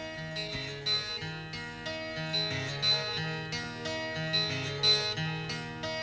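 Recorded late-1960s rock music, the instrumental intro: guitar over a repeating bass line, in a mono mix.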